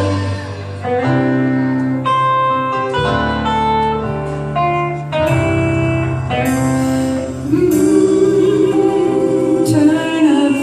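Music with singing over instrumental accompaniment, with several sharp struck notes and a held sung line in the second half.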